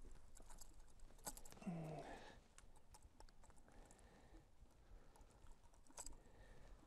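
Near silence with faint scattered ticks and taps, a little stronger just over a second in and again about six seconds in, and a short low grunt from a man about one and a half seconds in.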